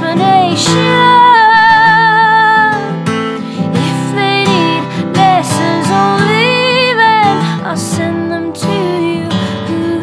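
A woman singing long held notes with vibrato, about half a second in and again around six seconds, over a strummed unplugged acoustic guitar.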